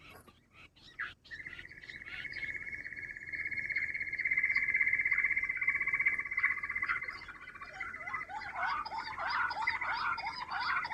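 Quail calling: one long, fast, even trill begins about a second in and lasts around six seconds, then gives way to a run of short chirping notes, several a second.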